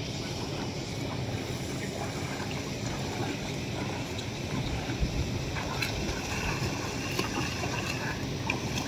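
Wind on the microphone over open river water, with faint splashing from a person swimming arm strokes.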